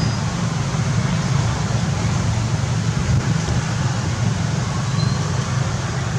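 Steady outdoor background noise: a low rumble with a hiss above it, and a couple of faint short high tones.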